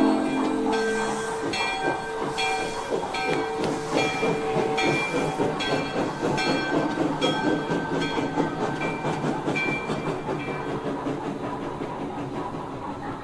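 Sound system of a Broadway Limited NYC J-1e Hudson model steam locomotive: a steam whistle dies away about a second in, then the recorded steam chuffing and hiss run on with a bell ringing about once a second, slowly fading.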